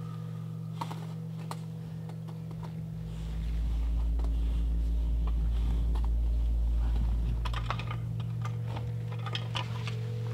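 Ice-axe picks and crampon points tapping and scraping on rock while dry-tooling: scattered sharp clicks that come thicker in the last few seconds, over a steady low hum.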